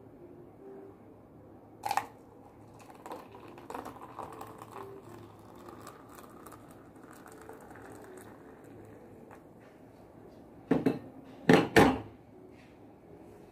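Hot water poured in a thin stream from a gooseneck kettle into a paper cup of instant coffee powder: a faint, even splashing that lasts several seconds. A knock about two seconds in and a few louder knocks near the end.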